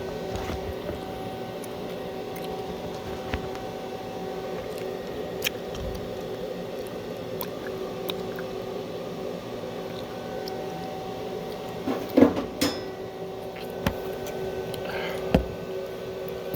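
Steady hum of a welding machine with a few fixed tones, scattered light clicks, and a short clatter about twelve seconds in.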